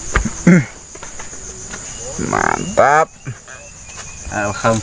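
Insects chirring steadily in a high, finely pulsing band, with loud excited exclamations from men's voices breaking in over it three times.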